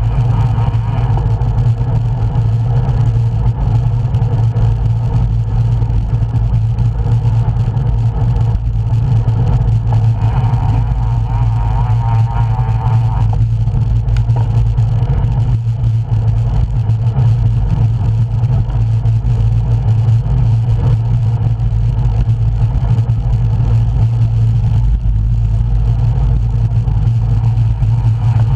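Wind buffeting the microphone of a camera carried on a road bike while riding: a loud, steady low rush that stays even throughout.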